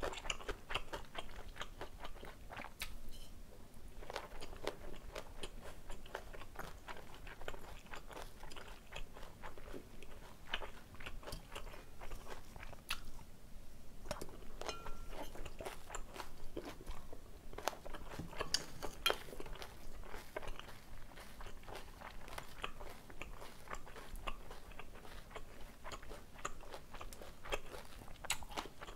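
Close-miked chewing and biting as a person eats jajangmyeon made with chewy glass noodles in black bean sauce, with many small wet clicks and crunches.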